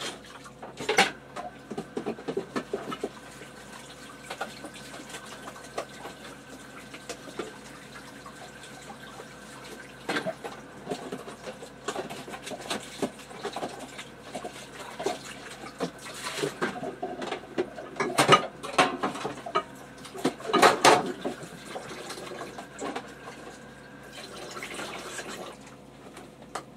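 A tap runs steadily, turned on about a second in and off near the end. Over it come scattered clatters of dishes and containers being handled, loudest about two-thirds of the way through.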